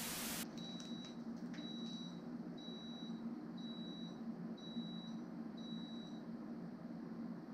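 Electric rice cooker beeping: six high, even beeps about one a second, each about half a second long, stopping about six seconds in, over a steady low hum. A brief burst of static hiss opens the sound.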